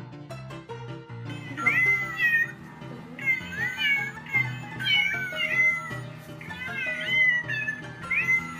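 Music, then from about a second and a half in, a run of cat meows, one roughly every second, over the continuing music.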